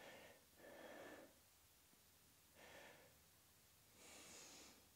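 Near silence with three faint breaths, a person breathing hard while holding a side plank.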